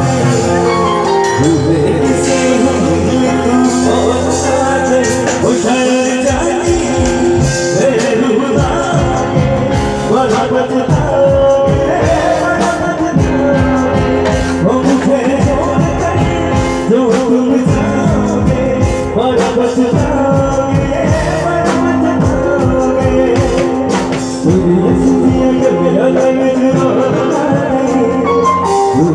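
Live band music played loud through stage loudspeakers: a singer over sustained instrumental chords, with drum beats coming in about six seconds in.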